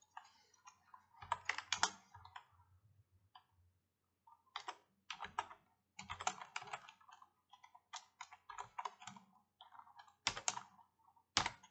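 Computer keyboard typing: irregular runs of quick keystrokes with short pauses between them.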